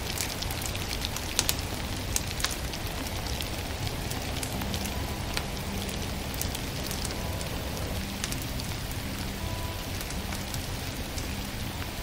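Wood fire crackling and popping in a stove, over a steady rain-like hiss. Faint held tones of soft music come in about four seconds in.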